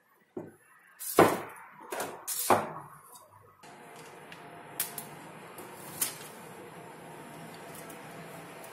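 Handling noise of small bottles and containers on a countertop: a few sharp knocks and clatters, the loudest about a second in. A steady hiss sets in suddenly about halfway through, with two light clicks after it.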